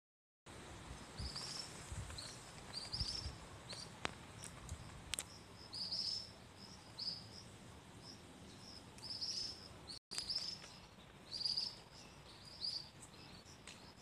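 Small birds chirping outdoors in a run of short, high calls repeated every second or so, over a faint background hiss, with a few soft low bumps early on.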